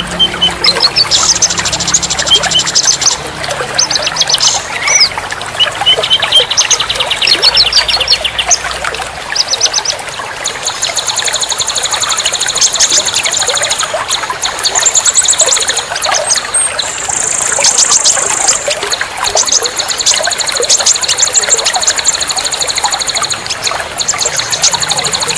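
Several songbirds chirping and trilling over a steady trickle of running water. From about ten seconds in, fast unbroken trills fill the high register.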